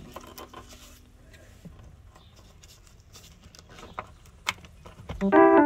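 Faint scattered clicks and light taps, then background music with sustained organ-like notes comes in loudly near the end.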